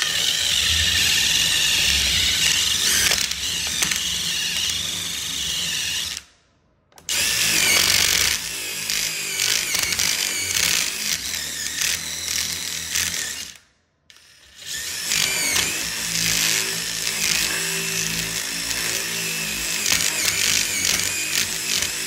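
Cordless drill boring out stripped screw holes in a wooden door jamb to enlarge them for wall anchors. It runs in three long spells of six to eight seconds each, one per hole, stopping briefly between them.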